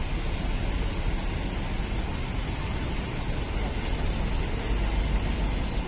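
Coach's diesel engine running low and steady as the bus pulls slowly across the terminal, under an even hiss of background noise.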